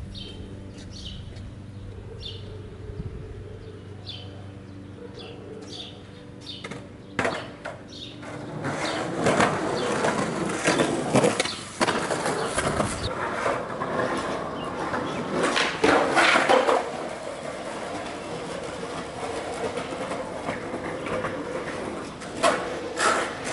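Skateboard wheels rolling over concrete, starting about a third of the way in and running on, broken by several sharp clacks of the board striking the ground. Before the rolling starts there are short high chirps over a low steady hum.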